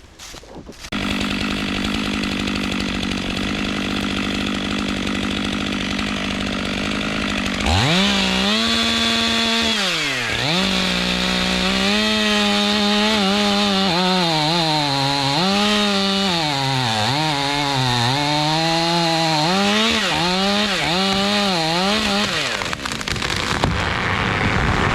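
Gas chainsaw running. It holds a steady pitch at first; from about a third of the way in, its pitch repeatedly sags and recovers as it cuts through wood under load, then it stops near the end.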